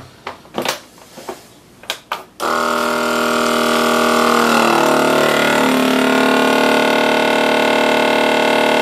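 A few clicks as the vacuum sealer's lid is pressed shut, then about two and a half seconds in the KitchenAid vacuum sealer's pump starts abruptly. It runs steadily as it draws the air out of a bag of minced pork, its pitch wavering and shifting partway through, and cuts off suddenly at the end.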